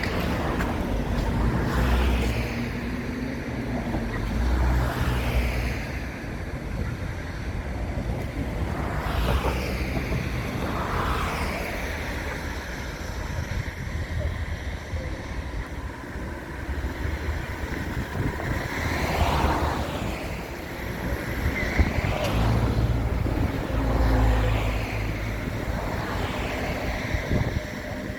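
Road traffic: vehicles passing one after another, each swelling up and fading away, over a steady low rumble.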